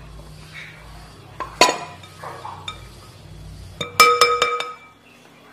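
Metal mesh sieve clinking against a glass mixing bowl while tapioca starch is sifted: one sharp clink about a second and a half in, then a quick run of ringing clinks about four seconds in.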